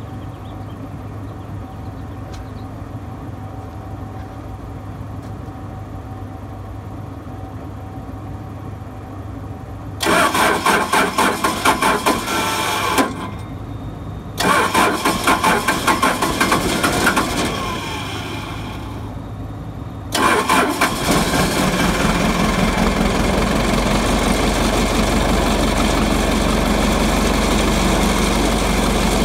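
Cummins diesel engine of a Case combine, fitted with a freshly rebuilt VE injection pump, cranked by the starter in two short pulsing bouts about a third of the way in; it catches a few seconds later and settles into steady running.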